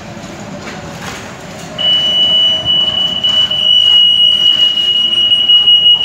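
An EAS RF anti-theft gate alarm (C 301 L system) sounds one continuous high-pitched tone, starting about two seconds in. It is set off by a hard security tag held near the gate antenna, which shows that the gate is detecting tags.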